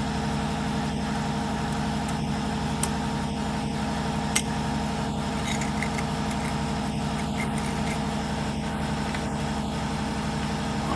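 Air compressor running steadily with an even motor hum, not cutting out. Two faint clicks sound a few seconds in.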